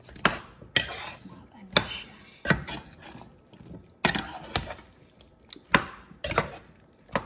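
Metal serving spoon stirring chunks of chicken, carrot and potato in a square copper-coloured nonstick pan. About nine irregular knocks and scrapes of spoon against pan, with wet shuffling of the food between them.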